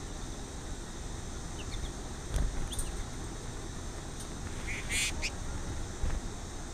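Birds at a feeder: a few short chirps, then about five seconds in a harsh, raspy call, over a steady hiss. Two dull knocks, about two and a half and six seconds in, from the feeder pole being jolted.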